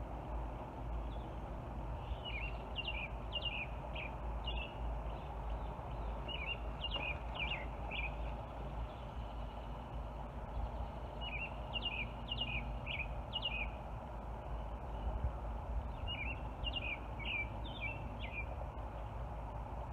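A songbird singing a short phrase of quick down-slurred notes, repeated four times about every four to five seconds, over a steady low background noise.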